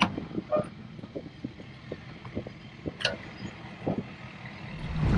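Hand-cranked boat trailer winch ratcheting in light, irregular clicks as its handle is turned to draw the boat up tight against the bow stop, with one sharper metal clack about three seconds in. A louder steady rushing noise comes in near the end.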